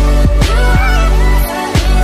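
Background music with a heavy, pitch-dropping bass and a melody over a steady beat.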